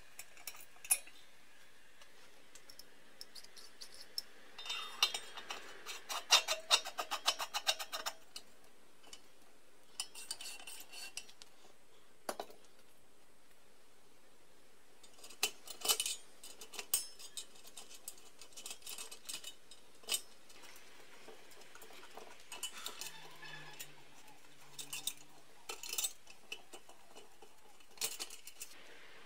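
Brass lamp parts clinking and scraping against each other as a Tilley storm lamp is put back together: threaded fittings turned by hand and the brass wire guard set in place. There are scattered sharp metallic clicks, with a run of rapid clicks several seconds in.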